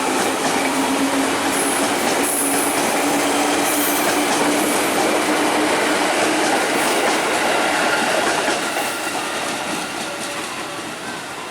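A train running past on the rails, its wheels clacking over the track with a few brief high wheel squeals; the sound fades out near the end.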